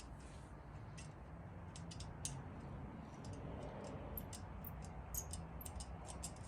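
Faint, irregular light clicks and ticks of small screws and nuts being handled and threaded by hand onto a metal mounting plate, a few to several a second, over a steady low background hum.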